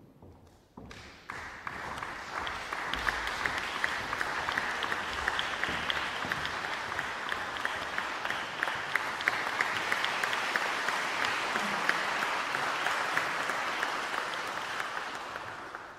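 Concert-hall audience applauding. The clapping starts about a second in, builds quickly to a steady sound of many hands, and dies away near the end.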